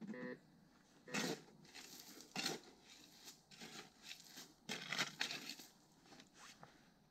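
Irregular rustling and crunching, with louder crunches about a second in, at two and a half seconds, and around five seconds, after a brief pitched sound at the very start.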